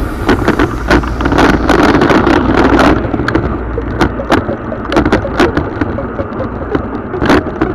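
Mountain bike rolling fast over a rough gravel track: a steady tyre rumble with frequent sharp clicks and rattles from the bike, a little louder in the first few seconds.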